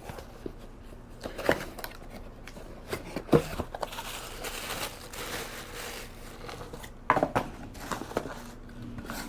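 Packaging being handled and opened by hand: crinkling and tearing, with a few sharp knocks.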